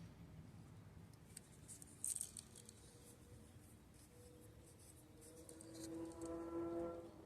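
A few short, light scrapes of a sharpening stone across a steel knife edge about two seconds in, deburring the blade on a fixed-angle sharpener. Faint steady tones rise in the second half.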